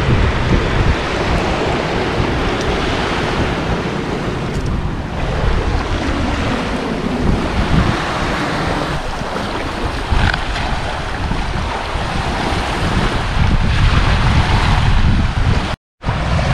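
Sea waves washing onto the beach, with wind buffeting the microphone as a heavy low rumble. The sound cuts out completely for a moment near the end.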